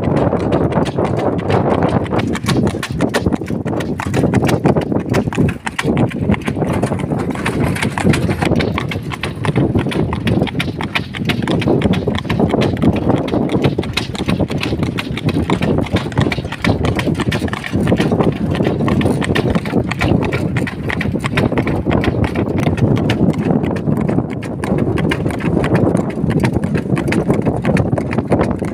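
Shod draught horse's hooves clip-clopping on asphalt as it pulls a wooden cart, with the cart and harness rattling along continuously.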